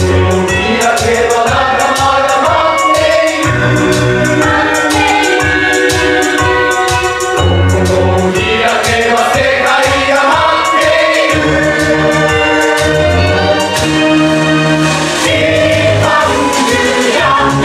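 Stage-musical cast singing an ensemble number in chorus over instrumental accompaniment with a deep bass line and a steady beat.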